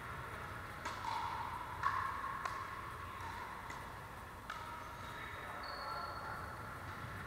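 Pickleball rally: paddles striking a hard plastic pickleball, with about six sharp pops at uneven intervals during the first few seconds. The loudest pop comes about two seconds in.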